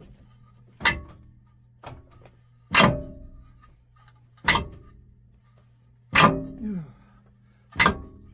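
Six heavy strikes on metal, one to two seconds apart, one of them weaker, each ringing briefly, over a steady low hum. The blows are dealt while the corrosion-seized Volvo marine diesel is held under jack load to break it free.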